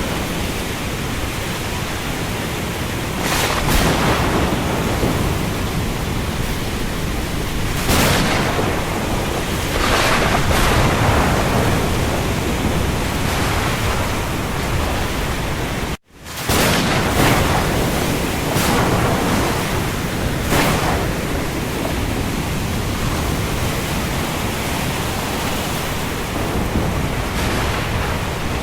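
Steady rush of heavy rain over the sea with waves, swelling every few seconds. A little past halfway it cuts out abruptly for a split second and comes straight back.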